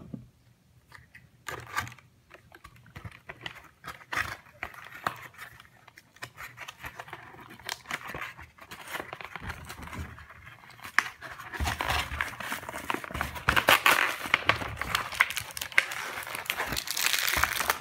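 Plastic packaging crinkling and crackling as it is handled and pulled at, with scattered small clicks and knocks. It gets busier and louder about two-thirds of the way in.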